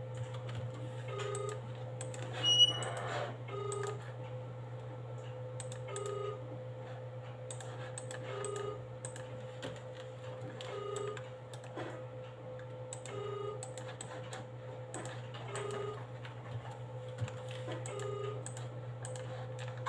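Computer keyboard and mouse clicks, scattered and irregular, with one louder click about two and a half seconds in. Behind them a steady low hum runs, and a short electronic beep repeats about every two and a half seconds.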